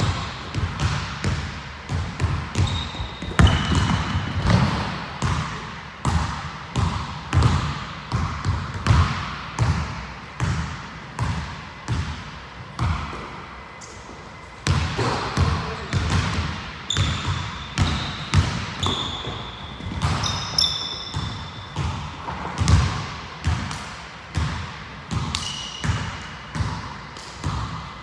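Basketball dribbled on a hardwood gym floor, bouncing about twice a second with a short lull about halfway through. Basketball shoes squeak briefly on the floor now and then.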